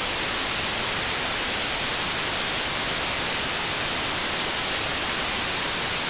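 Loud, steady static hiss on the livestream's audio feed, an even hiss strongest in the high end with nothing else over it: electronic noise in the sound setup.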